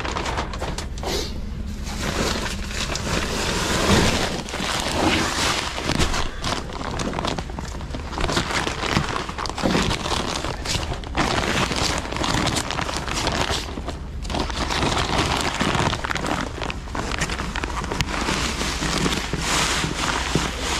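Strong wind buffeting the microphone in uneven gusts, a steady low rumble under a rough hiss.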